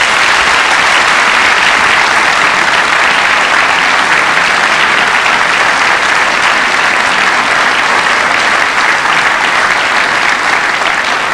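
Sustained applause from a large audience, a dense, even clatter of many hands that eases slightly near the end.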